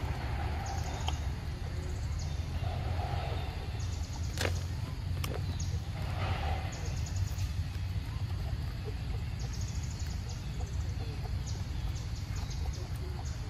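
A macaque biting and chewing a green mango, with one sharp crunch about four and a half seconds in and a few fainter clicks. Short bursts of high, rapid chirping come and go over a steady low rumble.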